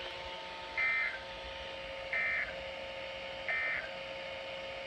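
NOAA Weather Radio SAME end-of-message data bursts played by a weather radio: three short, buzzy digital chirps about a second apart. They mark the end of the Required Weekly Test alert.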